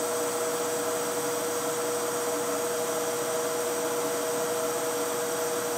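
Steady whirring of a soldering-bench fume extractor's blower, with a constant two-note hum under an even rush of air.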